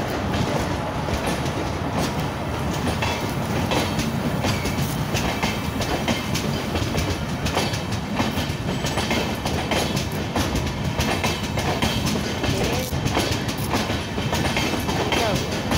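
Indian Railways LHB coaches of a parcel express rolling past close by. Their wheels rumble steadily and clatter over the rail joints in a run of irregular clicks.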